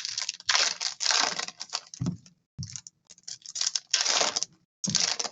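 Trading cards and foil pack wrappers being handled: irregular scratchy rustling and sliding of card stock, with bursts of crinkling.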